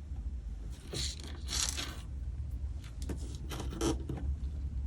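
Rustling and scraping of small objects being handled, in two spells of about a second each, over a steady low hum.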